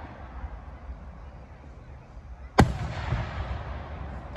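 A firework exploding overhead: one sharp bang a little over halfway in, followed by a second or so of fading echo.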